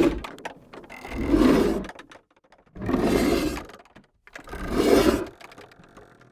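Guillotine sound effect: a blade sliding down and chopping, repeated several times, each one swelling over about half a second to a heavy chop and then fading, with short gaps between them.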